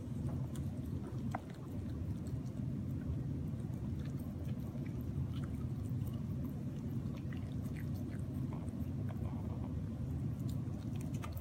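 Corgi puppy licking and chewing a strawberry, with small scattered wet mouth clicks and smacks over a steady low background hum.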